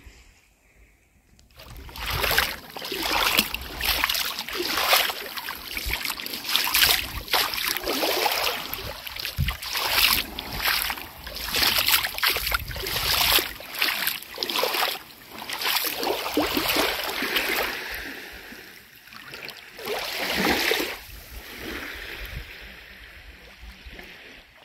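Gentle waves lapping and washing on a sandy beach, a rising and falling wash that starts about a second and a half in.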